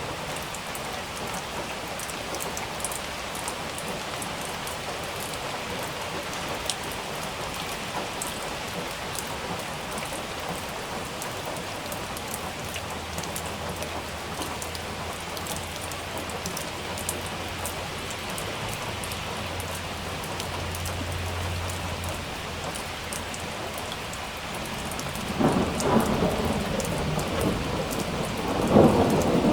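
Steady rain pattering with fine drop ticks, a low distant thunder rumble in the middle, then two loud crackling thunderclaps near the end, about three seconds apart.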